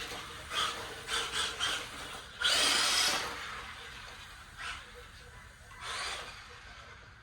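Short scraping and rubbing sounds, the loudest a half-second scrape about two and a half seconds in, then fainter ones that fade toward the end.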